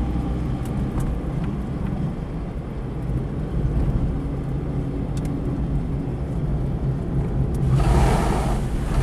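Car driving, heard from inside the cabin: a steady engine and road rumble. Near the end a loud rushing splash as the tyres run through standing rainwater on the road.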